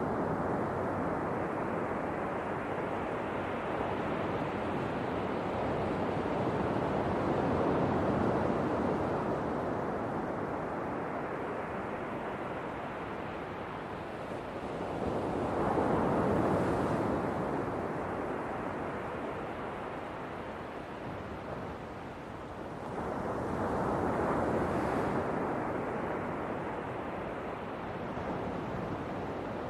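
Ocean waves breaking on a shore: a continuous wash of surf, with a bigger wave surging up about halfway through and another a few seconds before the end.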